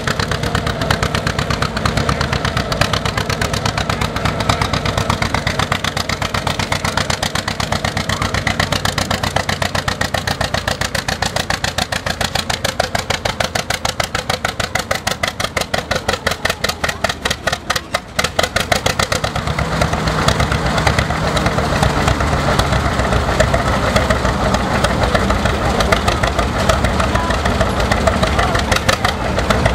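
John Deere tractor engine pulling a weighted sled under load, its exhaust beating in an even, rapid pulse. About two-thirds of the way through the sound dips briefly, then runs on steadier and a little louder.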